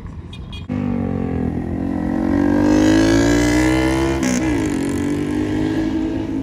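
A road vehicle's engine revving up as it accelerates. It starts abruptly about a second in and rises in pitch, drops sharply at a gear change about four seconds in, then climbs again.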